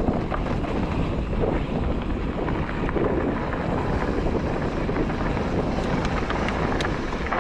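Wind buffeting the microphone over a steady low rumble, with a few sharp ticks near the end, from a mountain bike riding down a dirt trail.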